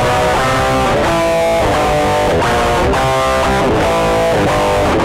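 Electric guitar playing a run of chords through an amp, each chord ringing about half a second before the next.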